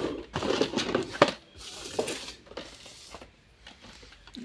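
Cardboard box and packaging tray being handled as a toy RC car is lifted out: a quick run of knocks and clatters, a short rustle, then quieter handling.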